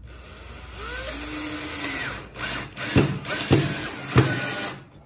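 Cordless drill driving a screw into a wooden strip, its motor speeding up and slowing in short runs, with three sharp knocks in the second half before it stops.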